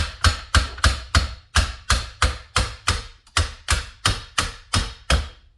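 Repeated sharp metal knocks, about three a second, as a hydraulic cylinder is knocked apart to drive the gland out of the barrel and free the rod and piston.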